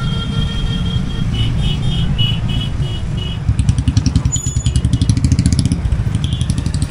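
Motorcycle riding slowly in traffic, engine running under low rumble and wind noise. A vehicle horn sounds in the first second, followed by a run of short high beeps until about three seconds in. After that the engine noise turns to a rapid, regular pulsing.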